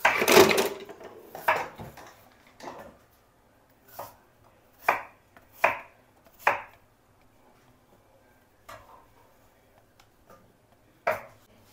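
Kitchen knife cutting fruit on a wooden cutting board: separate sharp knocks of the blade hitting the board at irregular intervals, a cluster of loud ones in the middle and a last one near the end.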